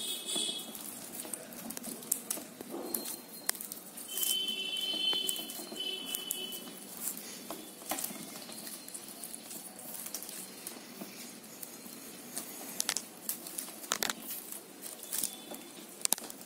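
Plastic craft wire being handled and knotted by hand: scattered small clicks and rubbing as the strands are pulled through, with a high squeak about four seconds in lasting a couple of seconds.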